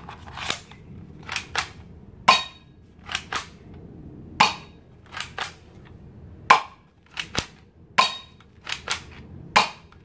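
Spring-powered toy Glock 18 pistol being cocked and fired again and again: six sharp snapping shots about two seconds apart, each shot after the first preceded by a quick pair of clicks as the slide is racked back to cock the spring.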